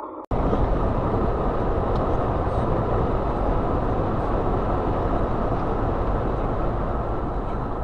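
Steady road and engine noise of a moving car heard from inside its cabin through a dashcam microphone, cutting in abruptly just after the start.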